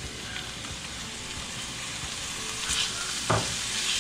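Chopped onion, garlic and roasted poblano chile strips sizzling in hot oil in a frying pan while being stirred with a spoon, the frying growing a little louder in the second half. A sharp knock sounds about three seconds in.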